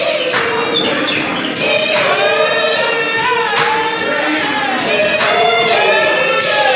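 A group of voices singing a Bhaca ingoma dance song in chorus, with frequent sharp percussive hits throughout.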